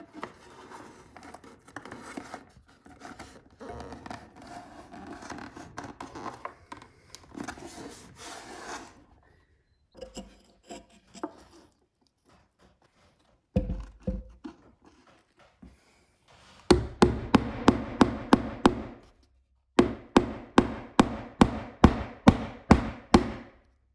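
Rubbing and scraping as a cord is pressed into a drilled channel in a pine wall board. Past the middle, after a single thump, come two runs of quick, even hammer taps, about five a second, fastening a thin wood strip over the channel.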